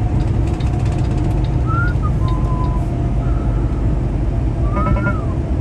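Semi truck's engine and road noise running steadily inside the cab while driving. Faint, brief whistle-like tones rise about two seconds in and rise and fall near the end.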